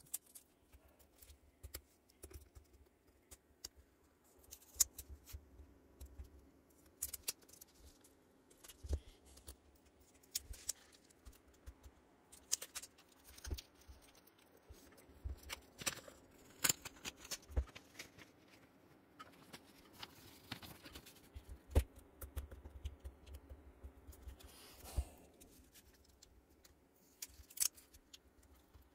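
Tape being peeled off cardboard backing boards and clear plastic wrap, with irregular crackles, rustles and light taps as the packages are handled.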